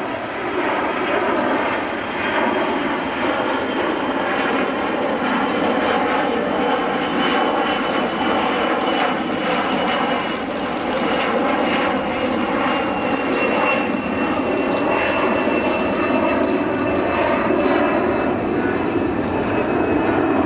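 Engines of a twin-engine military transport aircraft running steadily in flight, with a high whine that slowly falls in pitch.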